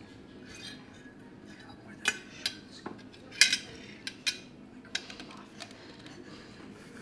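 Cutlery clinking and scraping against a plate as someone finishes eating, a series of separate sharp clinks with the loudest about three and a half seconds in.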